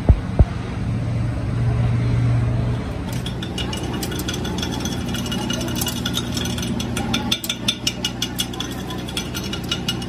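Slag being knocked and scraped off a fresh weld bead on a steel drive shaft with a hand tool: a quick run of sharp metallic taps and scrapes from about three seconds in. Before that come two sharp knocks at the very start and a steady low hum.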